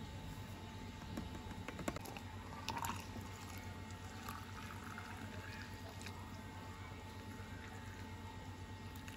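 Water poured into a glass over powdered green drink mix, a faint, steady pour. A few light taps come in the first few seconds as the powder is shaken out of its sachet against the glass.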